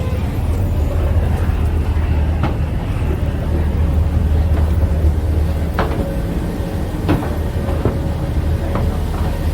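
River ferry engine running with a steady low drone that drops off about six seconds in, while several sharp knocks sound.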